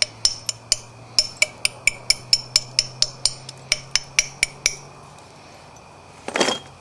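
A flintknapping platform being ground on the edge of a coral point preform with an abrading stone: sharp stone-on-stone clicks in quick strokes, about four a second, which stop a little after halfway. A short scuff follows near the end.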